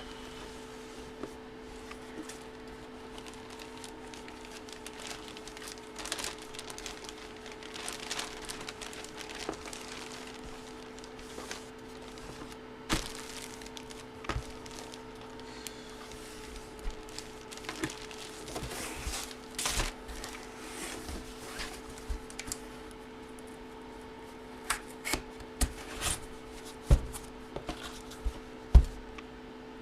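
Plastic card packaging crinkling and cards being handled, with scattered sharp clicks that come more often in the second half, over a steady low electrical hum.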